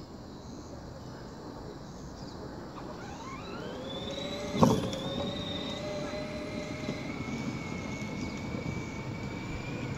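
Riding lawn mower's engine running, then revving up with a rising whine about three seconds in and holding a steady pitch as it pulls away. A single sharp knock comes near the middle.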